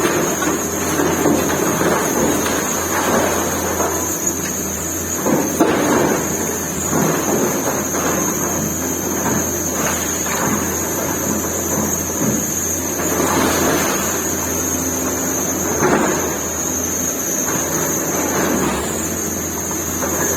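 Excavator's diesel engine running steadily, with a constant high whine above it, while rubble crashes and rumbles down as the bucket breaks up the building. The loudest crashes come about five and a half seconds in and again near sixteen seconds.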